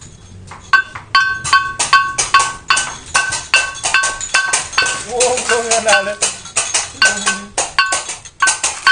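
Balinese gamelan percussion accompanying a barong procession: a fast, even run of metallic strikes alternating between two ringing pitches, starting just under a second in. A child's voice cuts in briefly near the middle.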